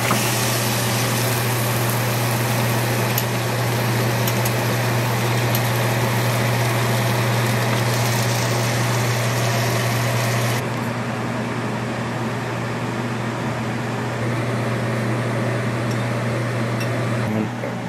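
Salmon fillet sizzling in a hot frying pan over a steady fan hum; the hiss and hum drop somewhat about ten seconds in.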